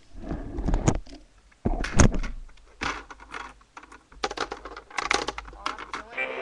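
Irregular clicks, knocks and rattles of things being handled close to the microphone, with no steady rhythm.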